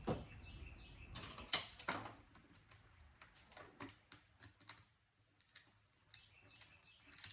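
Hand tool prying at a small plastic retainer on a circuit board: irregular light clicks and taps of plastic and metal, the loudest two about one and a half to two seconds in.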